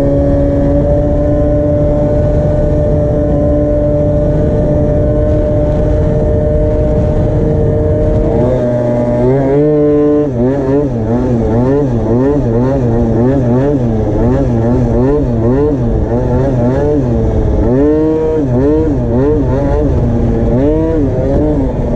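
Tuned Minarelli two-stroke engine of an MBK Booster scooter under way. For about eight seconds it holds steady revs, then the throttle is worked on and off and the revs rise and fall in quick waves. The carburettor runs a 100 main jet and is a little rich at quarter throttle, by the rider's account.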